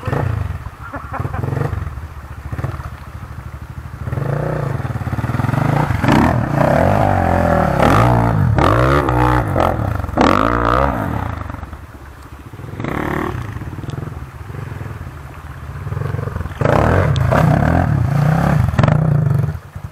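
Enduro dirt bike engines revving hard as the bikes push through a muddy creek. The pitch rises and falls with the throttle, loudest about six to eleven seconds in and again near the end, with water splashing under the wheels.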